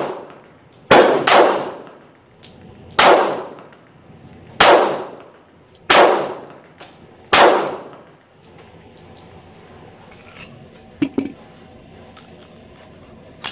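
Six pistol shots from a Ruger SR1911 Commander in .45 ACP, each followed by a ringing echo. The first two come in quick succession about a second in, then one about every one and a half seconds. About eleven seconds in come two light metal clicks as the magazine is released from the grip.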